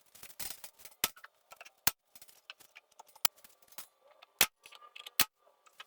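Objects being handled on a workshop surface: scattered sharp knocks and small clicks, with about five louder knocks spread irregularly among the small ticks.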